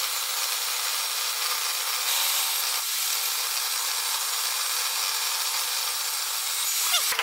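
Table saw blade shaving a square wooden stick that a cordless drill turns in a jig, rounding it into a dowel: a steady rasping cut. A short squeal comes just before it cuts off at the end.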